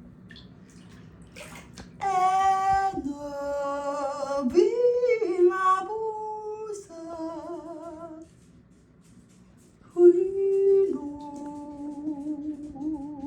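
A woman singing wordless held notes with a wavering vibrato, in two phrases: the first begins about two seconds in and slides between several pitches, the second begins about ten seconds in and holds a lower note.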